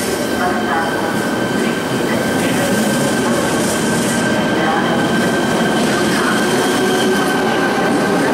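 ČD class 471 CityElefant double-deck electric multiple unit departing and rolling past, a steady high electric whine over the rumble of its wheels on the rails, growing slightly louder as it gathers speed.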